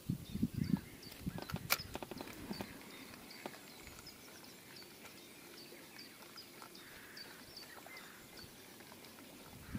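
A few soft knocks and a sharp click in the first three seconds as the fishing tackle and boat are handled, with a bird's faint, short, high call repeating a few times a second.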